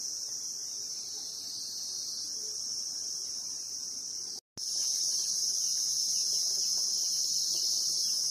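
Insect chorus: one steady high-pitched drone with no break in its rhythm. It cuts out for a moment about four and a half seconds in, then comes back louder.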